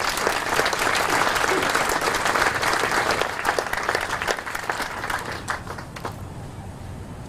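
Audience applauding, the claps thinning and dying away near the end.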